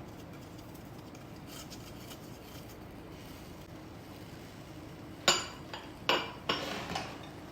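A kitchen utensil knocking and clinking against a cooking pan, three or four sharp knocks close together starting about five seconds in, the first the loudest, while sugar is added to cherries for a tart filling. Before that only a faint steady hum.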